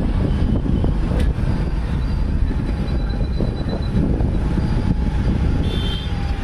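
Steady low rumble of wind on the microphone and road noise from a vehicle moving through city traffic, with a short high-pitched beep near the end.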